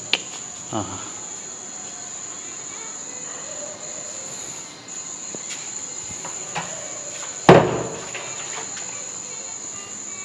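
A coin struck against a carved stone musical pillar: one loud, sharp strike about seven and a half seconds in that rings briefly, after a few fainter taps. Crickets chirp steadily at a high pitch behind it.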